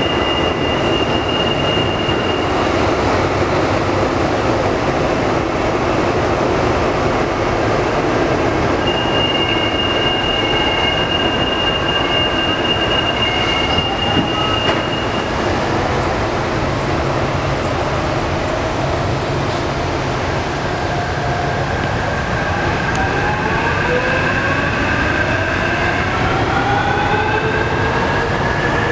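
Electric traction motors of a Line 15 monorail train (Bombardier Innovia Monorail 300) whining over a steady rushing noise, with a steady high tone in the first part and several rising whines over the last several seconds as the train accelerates.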